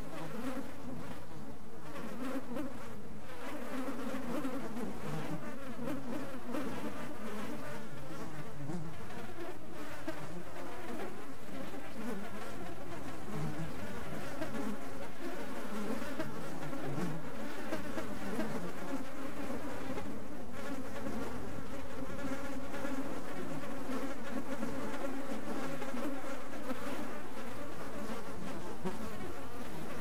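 Bees swarming around their hive in an agitated, angry state: a dense, continuous buzzing of many overlapping wingbeat drones at slightly different pitches, steady throughout.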